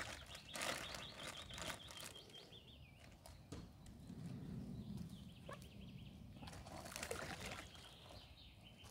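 Birds singing, with a quick trill of repeated high notes during the first few seconds and scattered short chirps after it, over faint outdoor ambience.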